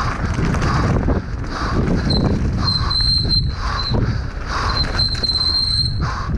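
Mountain bike descending a dirt forest trail, heard from a helmet camera: wind buffeting and the tyres and frame rattling over the ground make a constant rumble. A thin, high squeal from the disc brakes comes and goes several times as the rider brakes.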